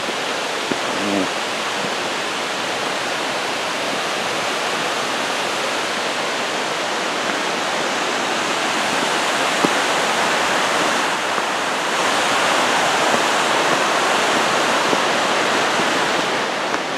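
Steady rush of a waterfall and creek, growing a little louder about halfway through.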